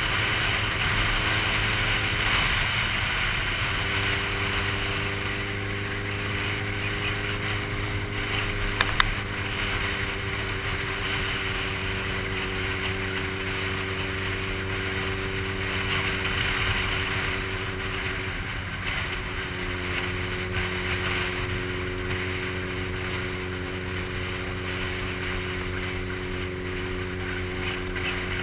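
Motorcycle engine running at a steady cruise under a strong rush of wind over the helmet-mounted microphone; the engine note shifts slightly twice, about four seconds in and again near nineteen seconds.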